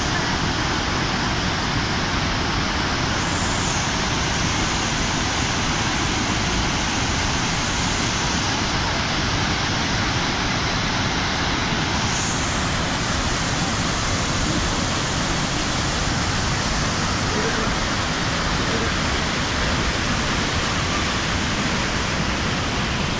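Gaganachukki waterfall in full flood flow: a loud, steady rush of water pouring over the rocks, without a break.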